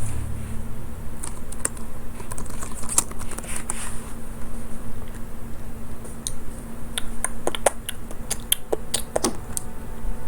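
Computer keyboard and mouse clicks: scattered keystrokes, with a quicker run of them in the second half, over a faint steady hum.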